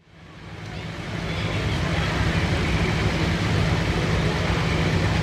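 Light limited super stock pulling tractor's engine idling steadily, fading in over the first two seconds.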